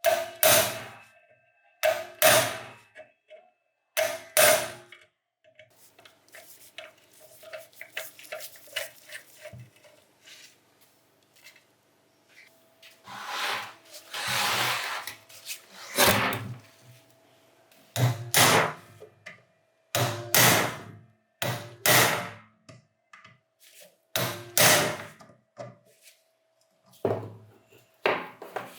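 Hammer blows on the metal of a rusted bench grinder, about one every two seconds, each leaving a ringing tone, as seized parts are knocked loose. Lighter taps and a longer scraping sound come in the middle.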